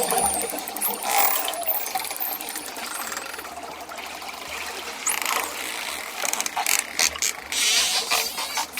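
Dolphin sounds: a few short high whistles sliding in pitch, and quick trains of clicks that grow denser in the second half.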